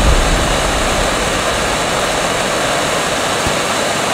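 Steady hissing rush of an Estes solid-fuel model rocket engine burning, with a deep rumble underneath that is strongest at the start.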